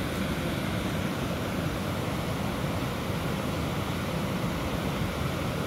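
Wind rumbling on the microphone: a steady, rushing noise with no distinct events.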